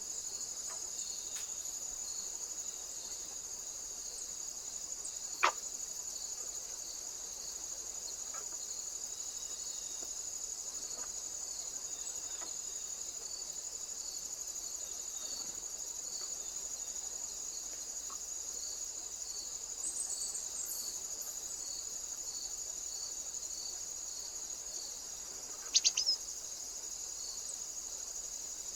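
A steady chorus of insects: a continuous high-pitched trill with a fast, even pulse under it. A single sharp click comes about five seconds in, and a quick run of louder clicks comes near the end.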